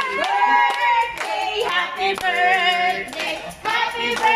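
A group of people singing a birthday song together while clapping along.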